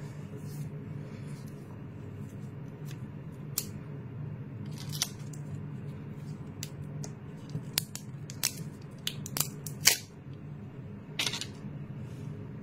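Sharp plastic clicks and crackles of a smartwatch being handled as its protective screen film is picked at and peeled off, a scattered run of ticks that comes thickest about eight to ten seconds in. A steady low hum runs underneath.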